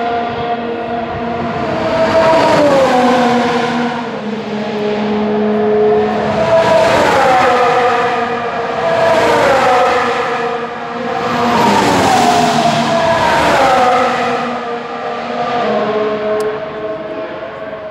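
Formula One cars' high-revving engines passing by one after another, each engine note dropping in pitch as it goes past. Several passes swell and fade in turn.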